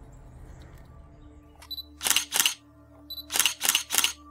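Camera shutter sound effect: a short high beep followed by two shutter clicks, then another beep and three quick shutter clicks.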